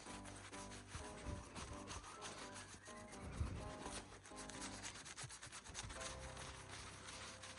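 Leather conditioner being rubbed into the dry leather of a first baseman's mitt: quick, repeated rubbing strokes. Soft background music plays underneath.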